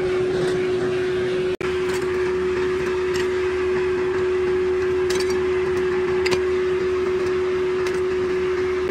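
Steady machine hum holding one constant tone, with a few faint clinks of scrap metal parts being handled. The sound cuts out for an instant about a second and a half in.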